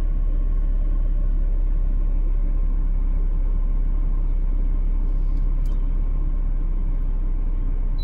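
Steady low rumble of a car driving slowly along an off-road concrete track, heard from inside the cabin.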